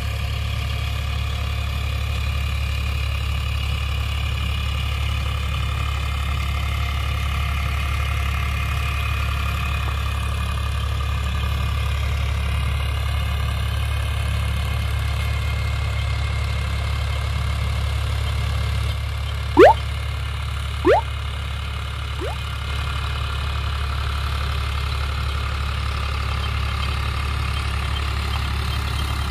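Eicher 551 tractor's diesel engine running steadily as it pulls a rotary tiller through the field, an even drone. About two-thirds of the way in come three quick rising whistles, the first two loud and the third faint.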